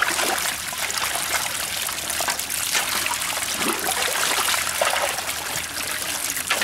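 Shallow muddy water trickling and splashing steadily as it runs down a plastic sheet over a mud bank, with many small splashes and patters from the small puti fish washing down with it.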